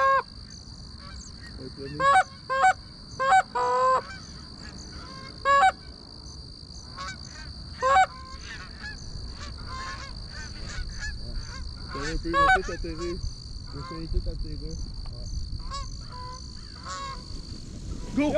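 Canada geese honking: a run of loud, close honks in the first eight seconds, then many fainter honks that come thicker toward the end as a flock comes in to the decoys.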